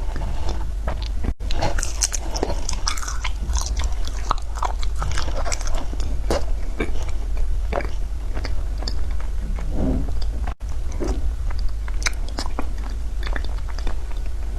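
Frozen matcha ice being bitten and chewed close to the microphone: a dense run of sharp crunches and cracks over a steady low hum. The sound cuts out very briefly twice.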